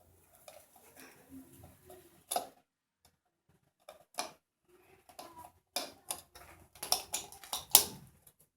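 Irregular clicks and knocks from hard plastic and small metal parts of a grounded wall socket being handled. The taps grow denser and louder in the second half.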